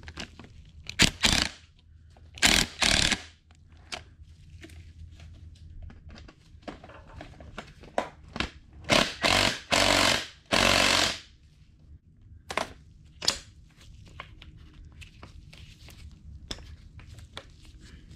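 Power impact tool hammering in about five short bursts, the longest cluster about nine to eleven seconds in, working to break loose a bolt on a snowmobile suspension rail. Clicks and clinks of handled tools come between the bursts.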